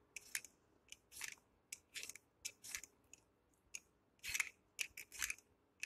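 A small radish being scraped and peeled with a knife: a dozen or so short, faint scraping strokes at uneven intervals.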